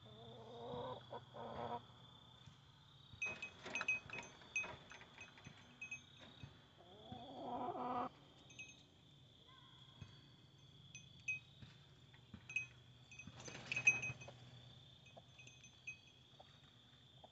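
A goat bleats twice, about a second in and again near eight seconds, over a steady thin high-pitched whine, with scattered short chirps and a few rustles and knocks.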